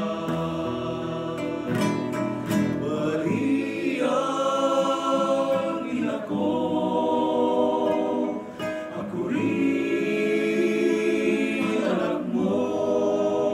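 A group of men singing a hymn together, accompanied by a strummed acoustic guitar, in long held phrases.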